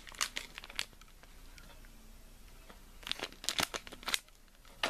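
Crinkly packaging being handled: a few quick crinkles, a quiet stretch, then a cluster of sharper crackles about three seconds in.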